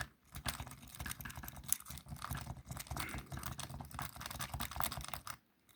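Jiggler key being worked rapidly in a wafer lock: fast, irregular metallic clicking and scratching as the key rakes over the wafers. It stops suddenly near the end.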